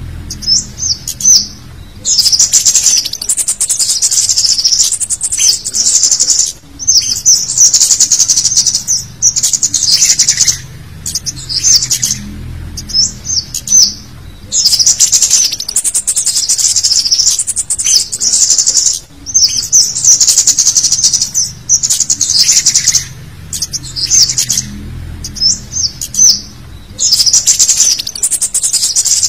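Cit kemade calls played as a bird-trapping lure: sharp, high twittering in busy bursts of a second or two, separated by short gaps and repeated again and again.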